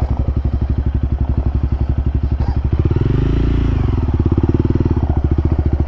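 Single-cylinder trail motorcycle engine running at low revs with an even, steady beat. It revs up briefly about three seconds in, then settles back.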